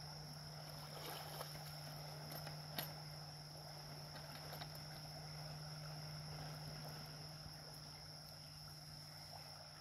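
Faint riverside ambience: a steady low hum and a steady high insect drone, with a couple of faint knocks as a plastic bucket on a rope is hauled out of the water and set on the bank.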